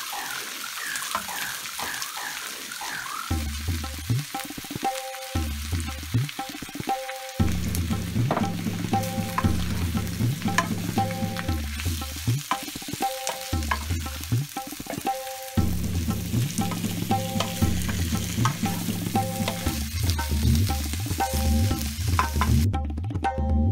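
Diced potatoes frying in hot oil in a nonstick pan, sizzling, with a wooden spatula stirring and scraping through them. Instrumental background music with a repeating low pattern plays underneath. The sizzling cuts off about a second before the end.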